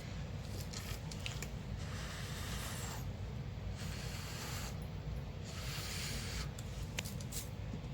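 Someone blowing on wet acrylic paint on a canvas, a series of breaths each heard as a soft hiss lasting about a second, to push the paint outward into a bloom.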